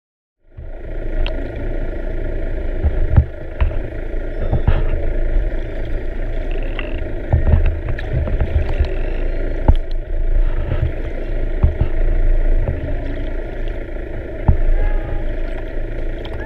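Underwater sound picked up by a camera in the sea: a steady low rumble and hiss of water noise, with scattered sharp clicks and a few faint short tones that rise and fall.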